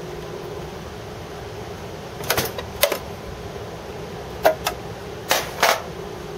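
About six sharp plastic clicks and clacks in two bunches as the black plastic air duct over the processors of a Sun Fire V240 server is unclipped and lifted out, over a steady hum.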